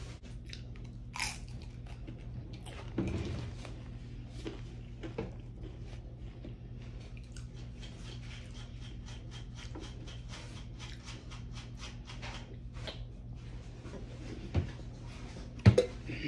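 Close-up chewing and crunching of Doritos corn tortilla chips and a cheeseburger, with a quick run of crisp crunches in the middle. A couple of sharp knocks stand out near the end, the louder one just before it closes.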